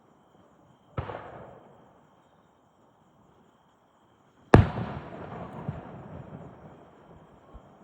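Two aerial firework shells bursting: a smaller boom about a second in, then a louder, sharper one about four and a half seconds in, followed by a long decaying rumble that fades over about three seconds.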